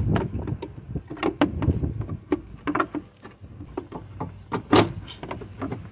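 Irregular clicks and knocks of two pipes being worked out of a bracket on the fan shroud, with one louder knock near the end.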